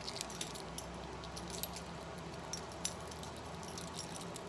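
Metal links of a heavy silver-tone chain necklace clinking and jingling in irregular light clinks as hands work to untangle it.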